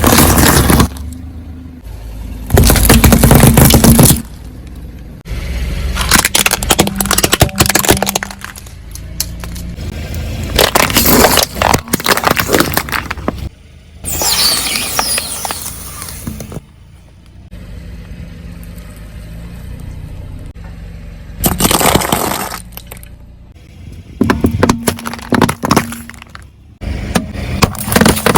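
Objects cracking and breaking as they are crushed under a car's tyres, in about eight loud bursts separated by quieter stretches.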